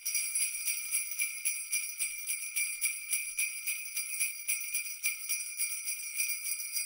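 Jingle bells shaken in a steady rhythm, several shakes a second, with a bright ringing that carries through.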